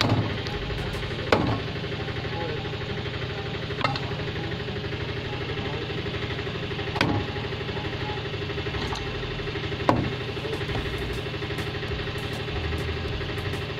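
A large curved knife chopping catla fish pieces on a wooden chopping block: about six sharp chops at uneven intervals. Under them runs a steady engine drone.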